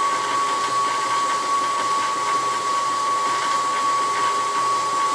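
Covington 30-inch slab saw running steadily: an even motor-and-drive noise with a steady high whine. It has a newly replaced pulley and is running quietly, working great.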